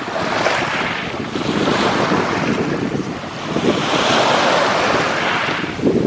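Small surf breaking and washing up over a pebble beach, swelling and fading as each wave comes in, with wind on the microphone.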